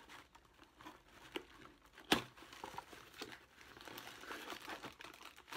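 Packaging handled by hand: a small card gift box opened and the clear plastic bag inside it crinkling, with light clicks and one sharp snap about two seconds in.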